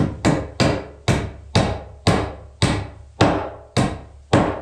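A hammer driving a nail into wooden wall framing: about ten steady, evenly paced blows, roughly two a second.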